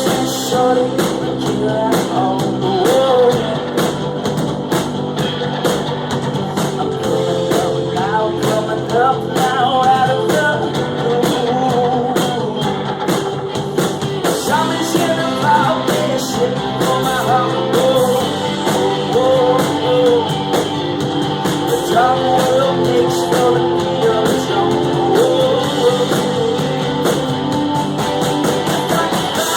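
Live rock band performing a song: a lead singer over electric guitars, bass and a drum kit, played continuously at a steady loud level.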